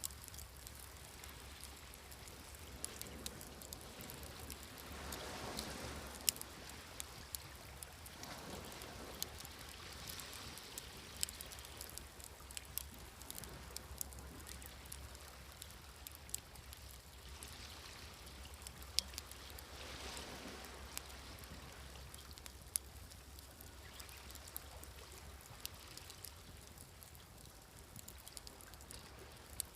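Wood fire crackling with frequent sharp pops, over sea waves washing in and falling back in several slow swells.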